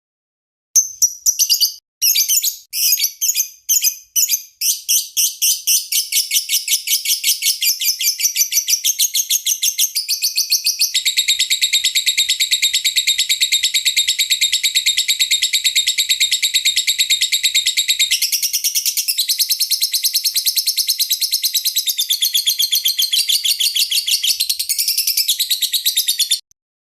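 Lovebird chattering: high-pitched chirps, spaced at first, speed up into a long, rapid, unbroken trill, then stop abruptly near the end.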